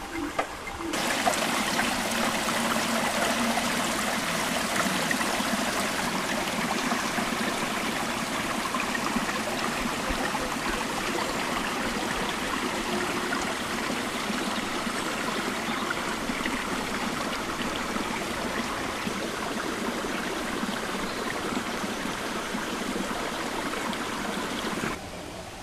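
Small woodland stream running, a steady rush and trickle of water. It cuts in abruptly about a second in and drops away just before the end.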